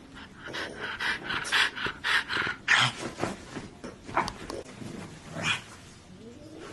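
French bulldog vocalising while playing: a quick run of short growly grunts for about two seconds, then a few single ones spaced out.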